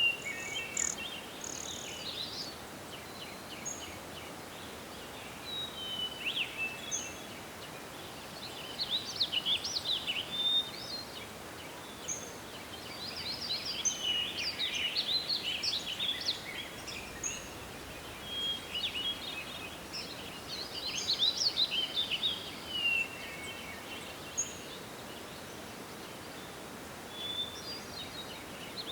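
Forest ambience: songbirds chirping and singing in bouts of quick, high notes over a steady background rush of wind.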